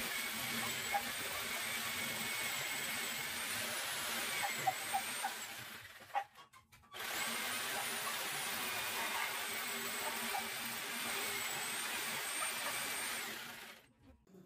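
Electric jigsaw cutting through a wooden plank: a steady high motor whine over the rasp of the blade, in two long runs with a short pause about six seconds in, stopping shortly before the end.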